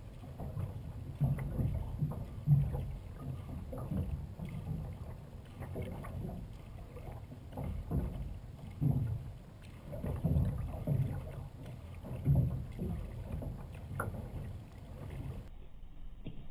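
Sea kayak being paddled with a double-bladed paddle: the blades dip and pull through calm water on alternate sides in a steady rhythm, with water washing along the hull. It is heard from a camera mounted on the bow deck.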